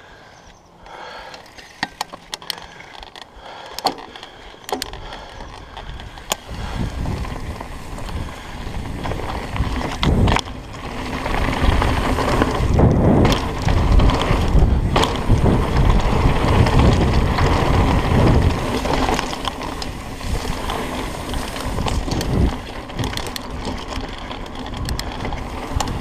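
Mountain bike riding along a dirt singletrack: tyres rolling over dirt, with scattered sharp clicks and rattles from the bike. From about six seconds in, a louder low rumble of wind on the microphone builds as the bike picks up speed.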